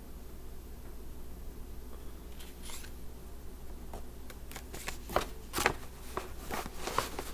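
Crinkly rustling and light crackling as things are handled close to the microphone: a few scattered crackles at first, growing busier and louder over the last three seconds.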